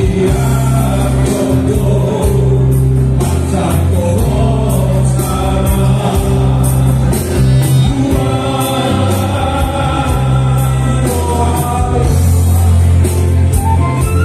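A male vocal quartet singing a song together in harmony through microphones and a PA, over a band accompaniment with a strong bass line.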